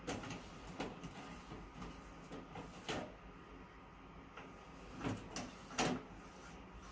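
Plastic cleaning rod pushed into and drawn out of the slots of a Konica photocopier's imaging units, giving a series of short scraping knocks, the loudest a little under six seconds in, over the copier's faint steady hum. The rod is cleaning toner from the charge grids and laser slit glass, the cure for lines on prints and copies.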